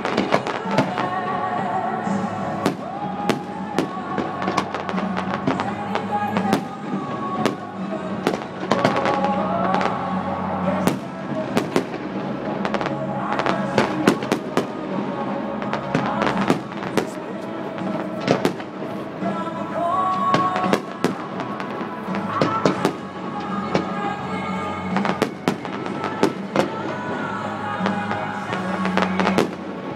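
Fireworks display: an irregular, rapid string of sharp bangs from bursting shells, with music playing alongside.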